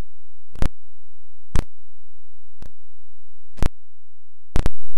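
The music and voices drop out, leaving a faint low hum broken by a sharp click about once a second, like a recording glitch.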